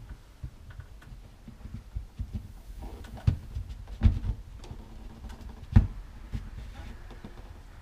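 A few dull knocks and thumps, the strongest three about three, four and six seconds in: handling noise as a Nest Protect smoke detector is lined up with its tabs and seated onto its ceiling mounting plate.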